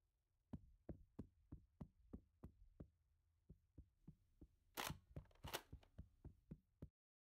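Faint, evenly spaced footsteps thudding down carpeted stairs, about three a second, with a short pause partway through. Two louder, brief rustling noises come near the end, and the sound then cuts off suddenly.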